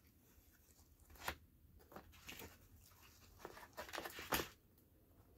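Hands rummaging in a cardboard pizza box and tearing apart cheese-topped bread: a run of short scrapes, rustles and tears, the loudest about four seconds in.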